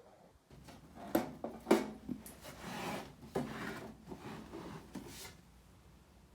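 Handling noise: rubbing and scraping with several sharp knocks, the loudest two close together near the start, dying away after about four seconds.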